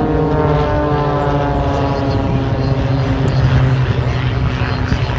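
Propeller airplane's engine flying past, its pitch sliding slowly downward as it passes.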